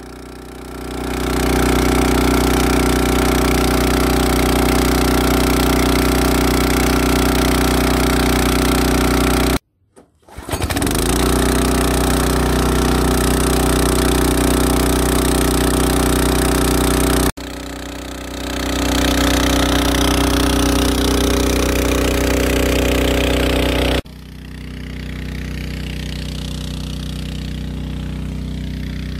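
Small petrol engine of a portable water pump running steadily while pumping water for irrigation. The sound breaks off sharply about ten seconds in and comes back within a second, and it is quieter over the last few seconds.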